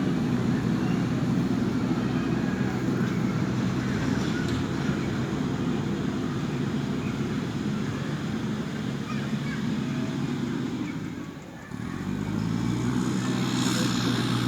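Diesel engine of a JCB backhoe loader running steadily under work. It dips briefly near the end and then picks up again.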